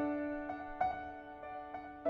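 Gentle background piano music: single notes struck every half second or so and left to ring out.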